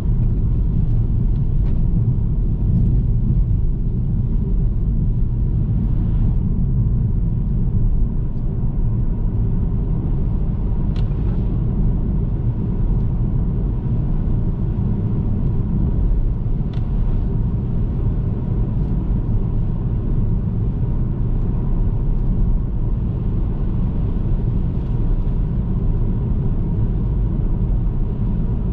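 Car driving at a steady pace: a constant low road and engine rumble, with a couple of faint ticks.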